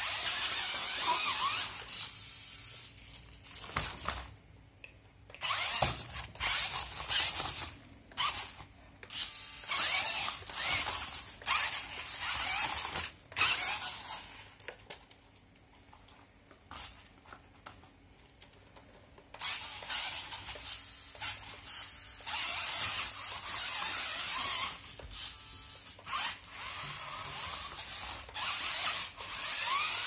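Toy RC rock crawler's small electric motor and plastic gearbox whirring in stop-and-start bursts as it drives over gravel, with a quieter lull partway through.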